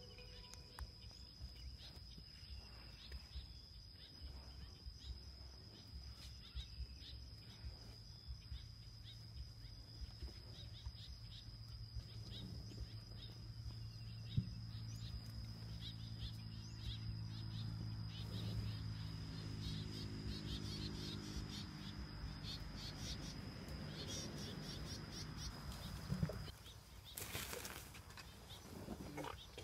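Outdoor ambience: a steady high-pitched insect drone with a low hum that swells through the middle and fades. The drone cuts off suddenly near the end, followed by a brief burst of rustling noise.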